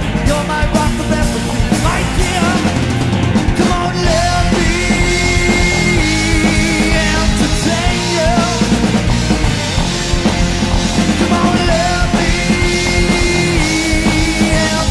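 Rock music from a band with a drum kit, a wavering melody line and held higher notes over a steady beat.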